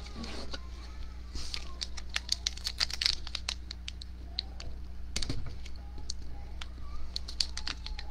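Plastic wrapper of a hockey card pack crinkling and crackling as fingers pick it up and start tearing it open, in quick irregular clicks that are thickest about two to four seconds in and again near the end.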